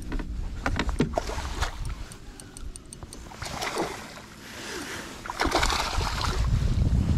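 A hooked smallmouth bass splashing and thrashing at the surface beside a kayak as it is brought to a landing net, with scattered clicks and knocks from the rod, reel and net. The splashing comes in two rushes, the second and longest near the end, as the fish is scooped up, over a low rumble of wind on the microphone.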